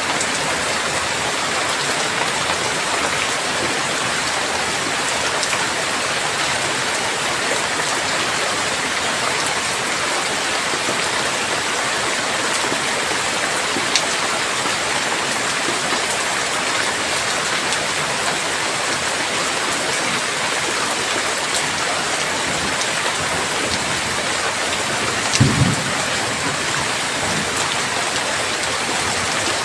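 Steady heavy rain falling, an even hiss of drops on surfaces. There is a single sharp tick about halfway through and a brief low thump near the end.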